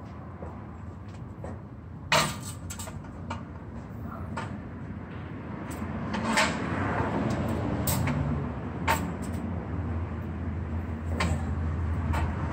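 Metal exhaust pipe knocking and clanking against the car's underbody as it is handled into place: about eight separate sharp knocks, the loudest about two seconds in.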